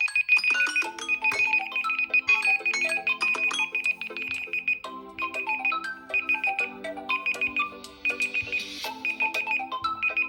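Smartphone alarm tone playing a melody of short, bell-like electronic notes over a held lower tone, with a high note repeating quickly throughout. About halfway in, the high note breaks into short pulsed groups.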